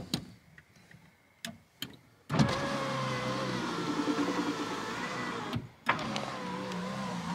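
Aftermarket universal electric window motor in a 2014 Toyota Yaris front door running the glass: a steady motor whine with a slightly wavering pitch. It is stopped for the first two seconds apart from a few clicks, starts about two and a half seconds in, stops briefly near six seconds, and runs again.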